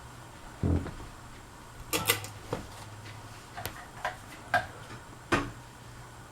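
Casablanca Four Seasons III ceiling fan running on high with a faint steady hum. A dull thump comes about half a second in, then a run of irregularly spaced sharp clicks.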